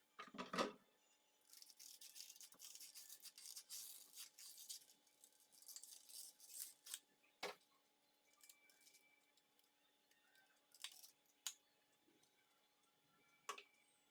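Quiet handling noises: a thump about half a second in, a few seconds of light rustling or scraping, then a few sharp clicks spread apart.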